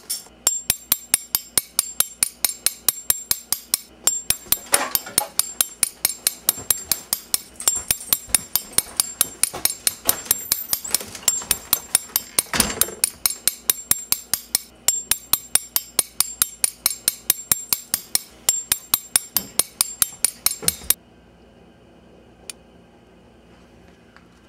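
A metal spoon tapping a quarter, steady metallic taps with a ringing clink at about four strikes a second, hammering the coin flat to shape it into a ring. The tapping stops suddenly about 21 seconds in, leaving a faint hum and one last tap.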